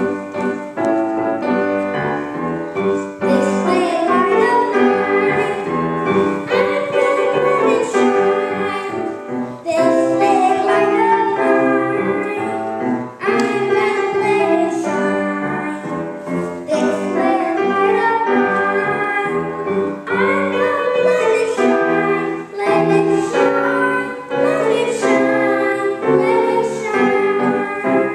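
A young boy singing a song with piano accompaniment; the music starts suddenly at the beginning.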